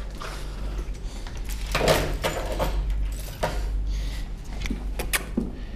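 Scattered clicks, shuffles and knocks from a small dog and a person moving about on a hard floor, with a louder rustling knock about two seconds in, over a steady low hum.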